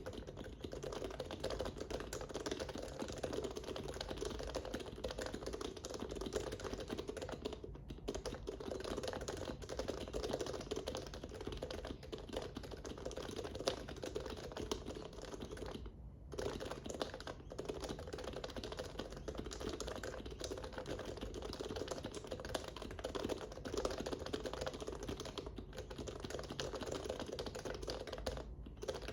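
Fast, continuous typing on a Topre-style keyboard in a Norbauer Heavy Grail case, with Deskeys Tiffany 35 g domes, HHKB Pro Classic sliders on lubed rails and OEM keycaps, set on a felt deskmat. It is a dense stream of keystrokes, broken by brief pauses about 8, 16 and 28 seconds in.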